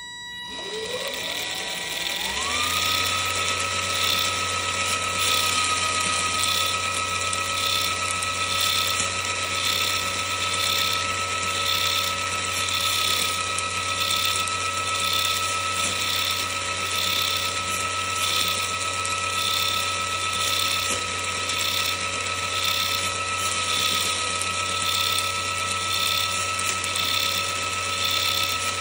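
Electric motor driving the open-cased two-speed gearbox of a Capo Samurai Sixer 1/6 scale crawler: a whine that rises as it spins up over the first couple of seconds, then a steady, high-pitched gear and motor whine with a low hum beneath.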